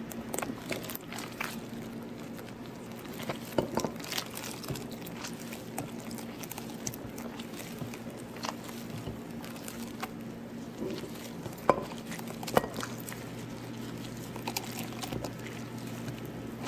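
Coconut milk pouring in a thin stream into a glass bowl of beaten eggs while a gloved hand squishes and stirs the mixture with pandan leaves: soft liquid splashing and squelching, with a few sharper small knocks.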